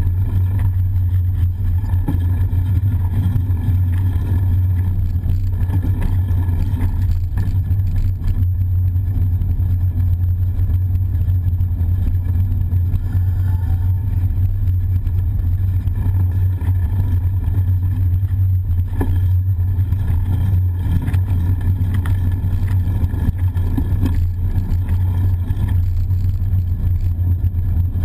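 Steady low rumble of riding noise picked up by a camera mounted on a moving bicycle's frame, with a couple of brief knocks from bumps partway through.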